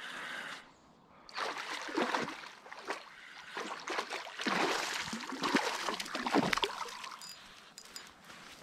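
Hooked flathead thrashing and splashing at the water's surface as it is played in, a run of irregular splashes starting about a second in, loudest near the middle and easing near the end.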